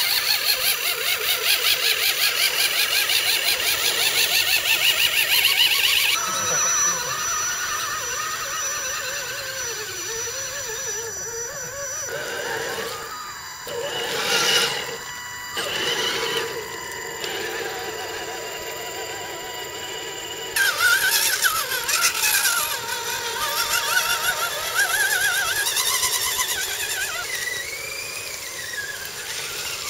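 Whine of radio-controlled scale trucks' electric motors and geartrains as they drive through mud, the pitch rising and falling with the throttle, the sound changing abruptly several times.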